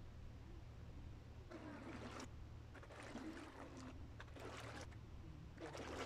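Small waves splashing faintly at the water's edge, four soft splashes about every second and a half, over a low steady rumble.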